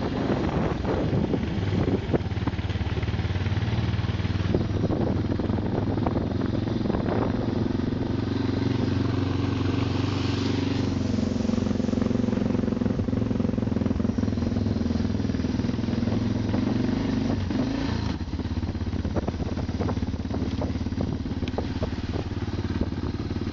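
A vehicle engine running steadily while driving over a rough, potholed road, with frequent knocks and rattles from the bumps. There is a brief rush of hiss about ten seconds in, and the engine note changes near the three-quarter mark.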